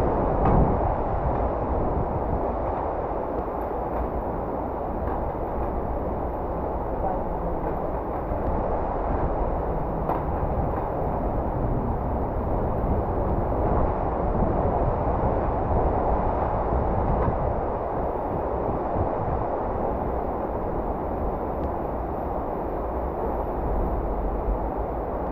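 Steady rushing of a fast-flowing river, with a low rumble underneath.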